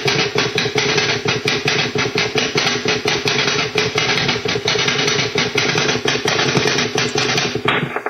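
Shortwave receiver audio of a rapid pulsing signal, about ten pulses a second, over a steady hum, heard in AM mode. It is a Russian Woodpecker–like over-the-horizon radar signal, which the uploader suspects may be a new Woodpecker. Near the end the audio turns narrower and duller as the receiver is switched to USB.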